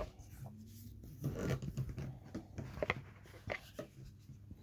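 Faint scattered clicks and short rustles over a low hum.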